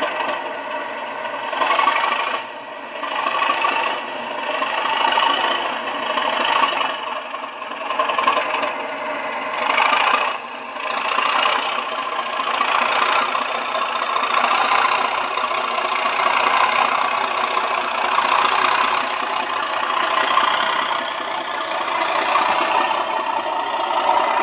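Sound decoder in a model Class 37 diesel locomotive playing its recorded diesel engine sound through the model's small speaker as it runs. The sound is thin, with no deep bass, and holds steady apart from a couple of short dips in level a few seconds in and around ten seconds in.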